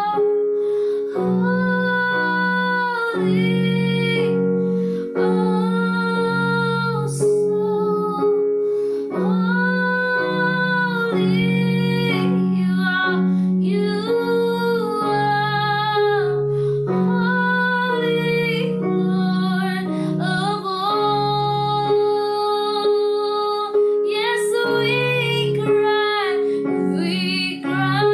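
A woman singing a slow worship song over sustained keyboard chords.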